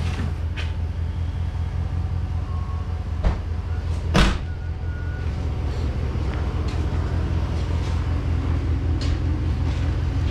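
Steady low drone of an idling vehicle engine. Two sharp knocks come a little over 3 and 4 seconds in, the second louder.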